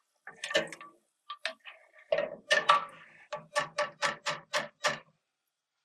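A utensil tapping against cookware: a run of about a dozen light knocks, coming faster and evenly, about three a second, in the second half.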